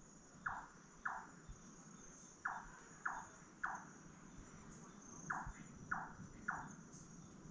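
Large-tailed nightjar calling: short, knocking "chop" notes about half a second apart, in runs of two, three and three with pauses between. A steady high-pitched chirring of crickets runs underneath.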